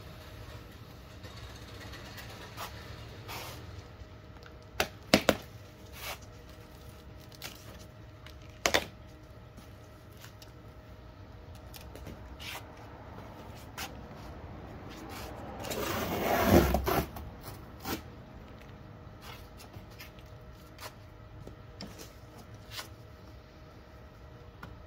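Large cardboard shipping box being opened by hand: cardboard flaps rustling and scraping, with a few sharp knocks and taps, the loudest a second-long scrape and rustle about sixteen seconds in.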